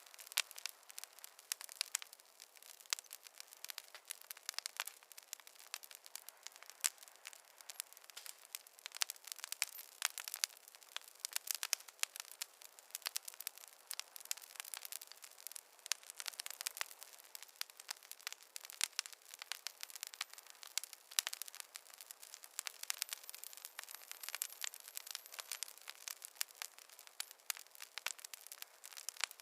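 Fireplace fire crackling: a steady stream of irregular snaps and pops over a soft hiss, thin, with no low rumble.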